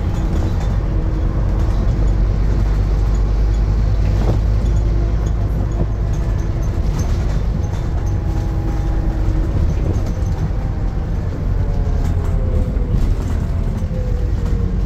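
Scania N230UD double-decker bus heard from inside the lower deck while under way: steady low engine drone and road rumble. Several engine and driveline tones sit over it, and a group of them falls in pitch over the last few seconds.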